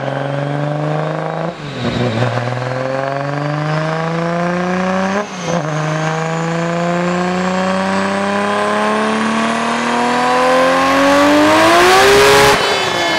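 Toyota Supra's turbocharged 2JZ straight-six, built to about 1150 hp at the wheels, making a full-throttle dyno pull. The engine note climbs steadily and dips briefly at two gear changes, about one and a half and five seconds in. It then rises to its highest pitch and falls away sharply near the end.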